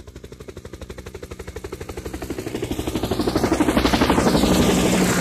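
Helicopter rotor sound effect: rapid, even chopping of the blades, growing steadily louder as it approaches and peaking about four seconds in.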